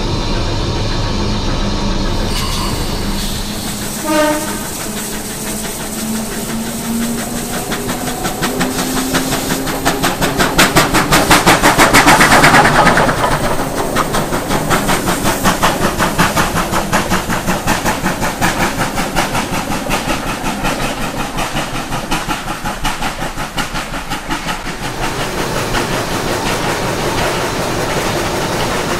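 Steam locomotive 3801, a NSW C38-class Pacific, running at speed: a fast, even rhythm of exhaust beats and wheels on rail, loudest about twelve seconds in as it passes close by. A brief high tone sounds about four seconds in.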